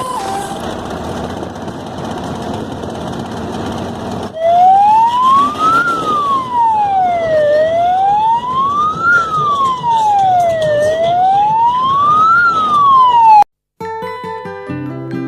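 Electronic siren wailing, its pitch sliding evenly up and down in slow cycles of about three seconds, over a noisy background; it starts about four seconds in and cuts off abruptly near the end, where guitar music begins.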